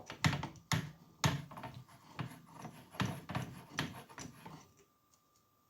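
Wildcat Evolution rifle moderator being handled and screwed together: a run of irregular clicks, knocks and rubbing, which stops about a second before the end.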